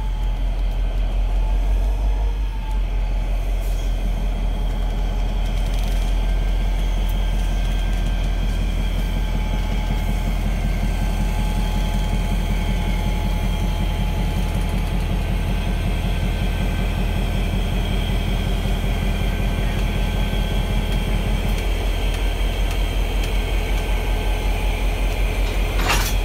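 An EMD GP40 diesel locomotive's two-stroke engine running with a steady, pulsing rumble as the locomotive creeps along slowly, with a sharp knock near the end.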